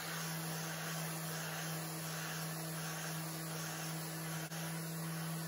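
Random orbital sander with dust extraction running steadily against a guitar body's rosewood top, an even hiss over a steady hum. It is the 240-grit pass that knocks back wood fibres raised by wetting the surface.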